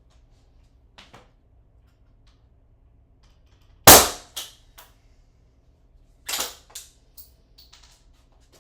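Ramset powder-actuated nail gun firing once, about four seconds in: a single sharp, very loud bang as the powder load drives a nail. Quieter clacks and knocks follow, the loudest of them about two and a half seconds after the shot.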